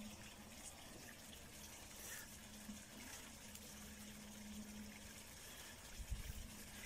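Faint steady hiss with a low hum underneath, and a brief low thump about six seconds in.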